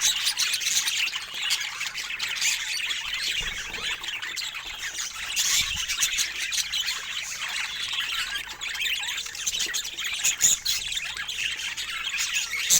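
Budgerigars chattering and squawking: a dense, unbroken stream of short chirps and squawks.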